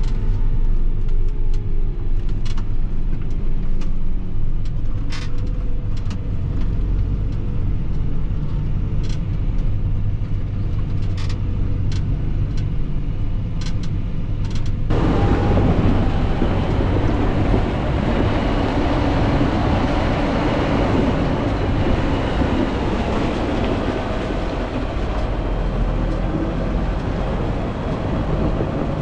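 Fendt 716 Vario tractor engine running steadily under load with a slurry tanker in tow, with a few sharp clicks in the first half. About halfway the sound changes abruptly to a louder rushing noise over the same low engine drone.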